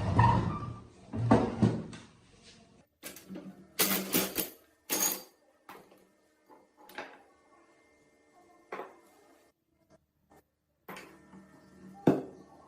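Irregular clanks, knocks and short scrapes of metal parts and tools being handled while working on an old, rusty hydraulic floor jack. The heaviest clunks fall at the start and a second later, with sharper scraping bursts around four to five seconds in and a last knock near the end.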